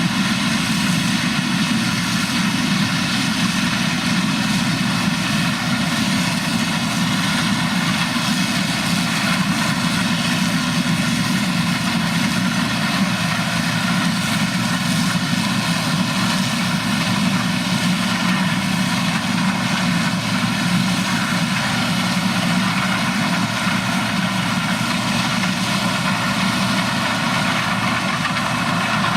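Heavy farm machine's engine running steadily at constant speed.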